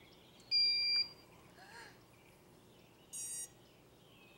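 Electronic start-up beeps from RC quadcopter gear being powered up: one loud, high, steady beep about half a second in, lasting about half a second, then a shorter, softer high beep near the end.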